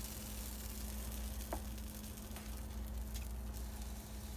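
Pancake batter sizzling gently on a hot griddle tray over a steady low hum, with a few faint light clicks.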